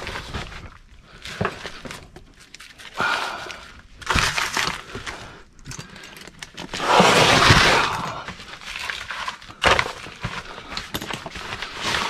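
Plastic vapor-barrier sheeting crinkling and rustling in irregular bursts as a person crawls across it, with scattered knocks; the loudest, longest rustle comes about seven seconds in.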